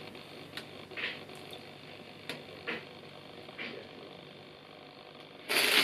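Tissue paper being handled while a box is unwrapped: a few faint, scattered rustles and taps, then loud, close crinkling of the paper starting near the end.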